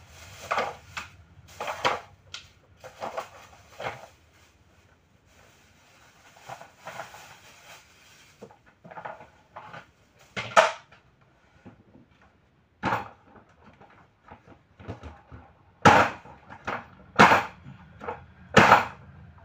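Hollow plastic side boards of a kids' ride-on tractor trolley knocking and clattering as they are handled and pushed into place. Irregular sharp clacks with some scraping between them, the loudest three near the end.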